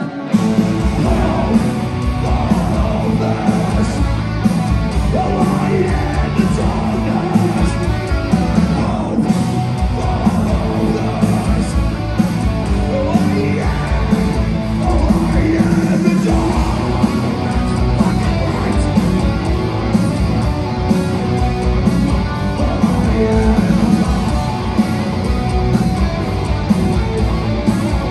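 Metalcore band playing live at full volume: heavily distorted electric guitars, dense pounding drums and shouted vocals, recorded on a phone in the crowd.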